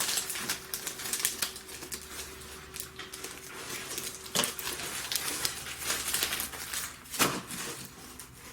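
Cardboard comic short box being opened and handled: irregular crackles, scrapes and clicks, with louder knocks about four and a half and seven seconds in.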